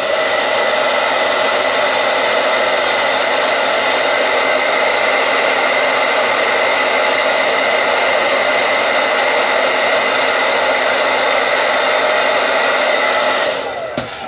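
Handheld blow dryer running steadily with a whirring fan whine, then switched off near the end, its pitch falling as it winds down.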